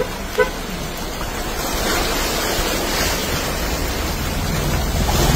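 Steady rush of heavy rain and floodwater splashing as vehicles drive through a flooded road, growing louder about a second and a half in, with a large vehicle's engine hum coming in near the end.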